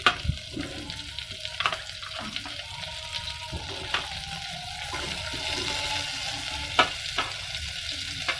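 Cauliflower florets and onion sizzling in melted margarine in a saucepan, with clicks and scrapes of a slotted spatula pushing more of them off a baking tray; the sharpest click comes about seven seconds in.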